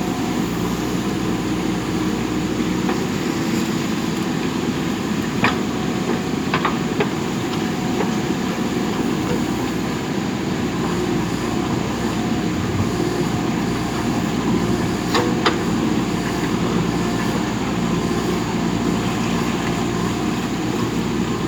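Diesel engine of a JCB backhoe loader running steadily under working load while it digs soil, with a few short sharp knocks, two of them close together about fifteen seconds in.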